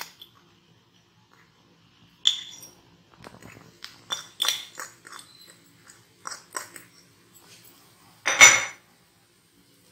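Metal fork scraping and clinking against a small plate as grated cheese is scraped off it onto an omelette in a pan: a run of short clinks and scrapes, then one louder clatter near the end.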